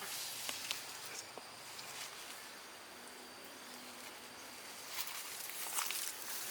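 Outdoor ambience: a steady high insect drone under faint hiss, with a few light clicks and rustles and a louder burst of rustling about five seconds in.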